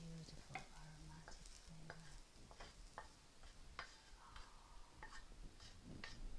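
A spatula scrapes and taps fried prawns out of a wok onto a plate. It makes a string of quiet, sharp clicks and scrapes, about one or two a second, with faint sizzling from the hot wok.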